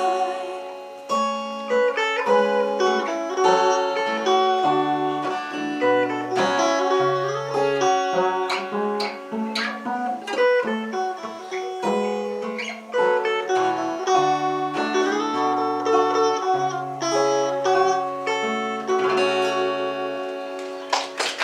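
Instrumental playout at the end of a song: a plucked guitar melody over held bass notes, with no singing.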